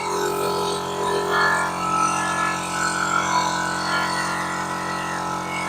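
A steady mechanical drone holding one fixed pitch, with a fluctuating higher whirr over it.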